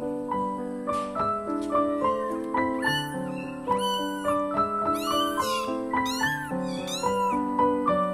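Kittens meowing in about half a dozen short, high-pitched cries over background piano music.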